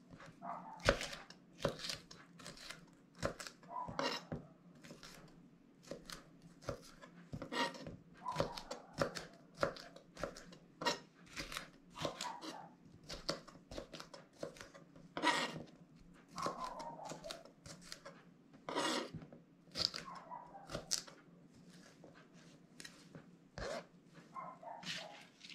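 Kitchen knife slicing a sweet red bell pepper on a plastic cutting board: a run of irregular knife strokes tapping through the pepper onto the board.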